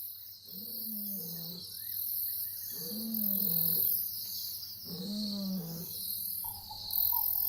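Lion calling: three long, low moans about two seconds apart, each sliding slightly down in pitch, over the steady high hiss of insects.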